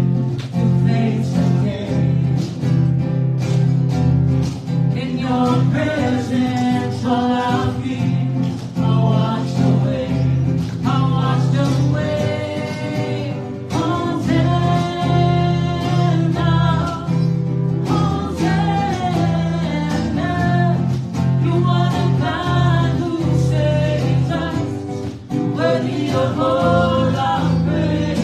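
A worship song performed live: a woman singing into a microphone over acoustic guitar, played through a PA speaker in a room.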